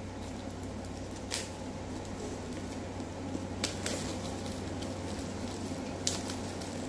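Book subscription box and its contents being handled: three faint taps or clicks, about a second and a half in, near four seconds and about six seconds in, over a steady low hum.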